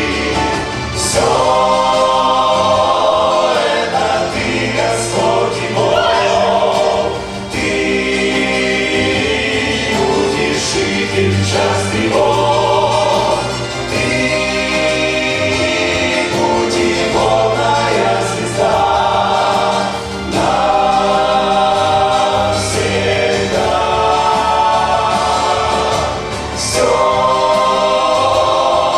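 Choir singing a Christian worship song in sustained phrases of a few seconds each, with short dips between them.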